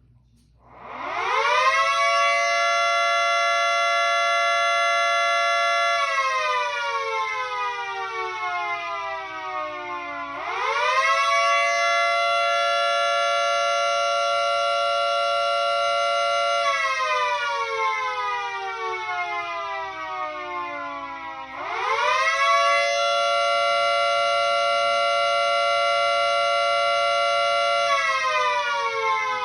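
Miniature model of a Federal Signal 2T22A two-tone siren sounding a wail signal. Three times it winds up quickly, holds full pitch for about four to six seconds, then winds slowly down.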